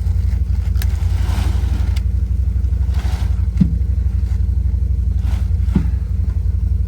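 Can-Am 6x6 ATV engine running steadily at close range, a low even rumble, with a few knocks and clattery noises over it.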